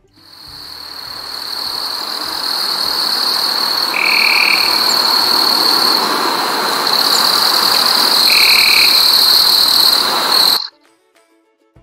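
Forest insects calling: a steady high-pitched drone over a broad hiss, with two short lower calls about four and eight seconds in. It fades in at the start and cuts off abruptly near the end.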